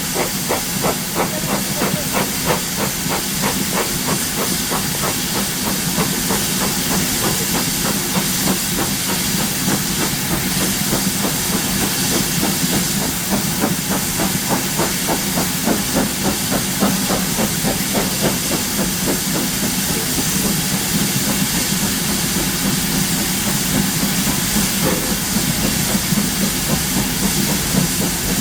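Steam locomotive letting off a loud, steady hiss of steam, with a fast, even pulsing beneath it.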